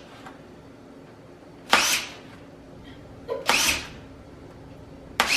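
Power drill run in short bursts, its bit working through the packing tape on a cardboard box, three times about a second and a half apart.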